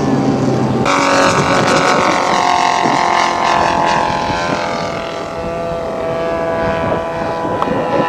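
Engine of a radio-controlled scale model airplane running on landing approach with its gear down. The engine comes up loudly about a second in, and its pitch falls slowly over the next few seconds as it throttles back or passes.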